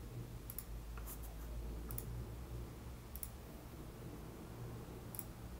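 Computer mouse clicking a few times as plugin menus are navigated: about five faint, scattered clicks over a low steady hum.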